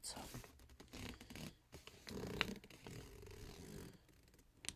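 Faint rustling and scraping of a folded paper collector's checklist being handled and moved in the hands, with a couple of sharp clicks, the clearest near the end.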